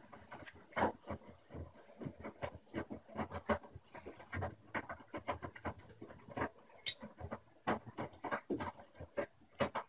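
Washing machine drum turning with wet laundry tumbling inside, giving an irregular run of soft thuds and slaps.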